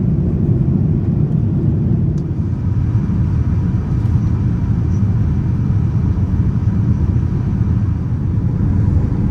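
Steady low roar of a Boeing 787-9 airliner cabin, the engine and airflow noise heard from an economy-class seat.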